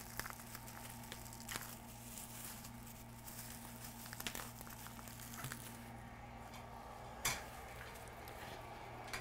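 Faint rummaging: boards and packaging being handled in a box, with a few scattered clicks and knocks, the loudest near the end, over a steady low hum.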